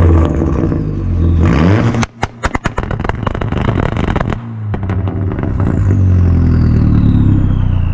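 A car engine revving: it holds, climbs, then breaks into a rapid string of sharp pops. It climbs again with a thin high whistle falling in pitch near the end.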